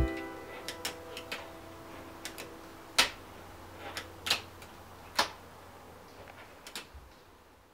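Scattered light clicks and taps from small tools and a wooden fingerboard deck being handled on a workbench, over a faint steady hum. The last chord of background music rings out and fades at the start.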